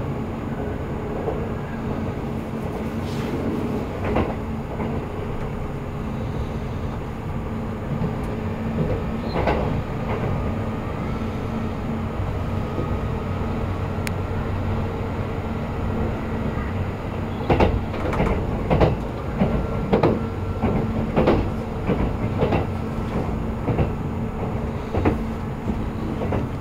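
Kintetsu limited express train running, heard from inside the carriage: a steady rumble and hum. From about two-thirds of the way in, the wheels clack in a quick run of sharp clicks over rail joints.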